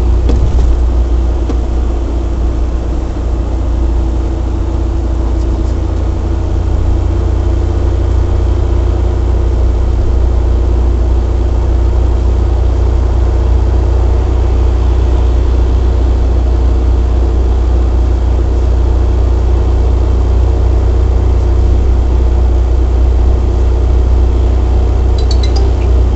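Suzuki Jimny JB23 driving at highway speed, heard as a loud, steady low rumble with a steady humming drone on top. This is the abnormal noise the owner is recording.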